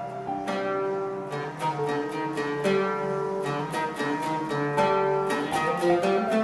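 Background music: a plucked-string melody, guitar-like, with notes picked in a steady rhythm.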